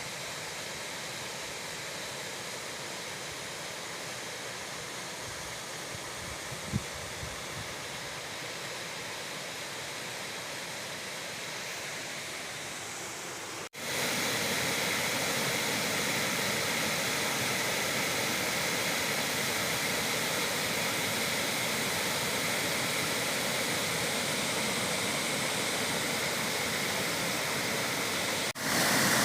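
Waterfall rushing, a steady even noise of falling water. About halfway through it cuts out for an instant and comes back louder, with a brief low thump a few seconds before that.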